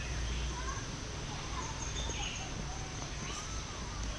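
Many birds chirping and calling, short whistled notes overlapping irregularly, over a steady low rumble.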